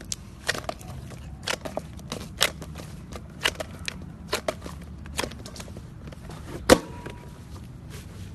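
Slime being squeezed and handled, giving irregular sharp pops and crackles, with one much louder pop about two-thirds of the way through.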